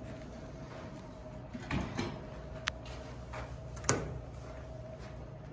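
Elevator doors sliding shut with a couple of soft knocks, then a sharp click about four seconds in as an elevator hall call button is pressed, over a faint steady hum.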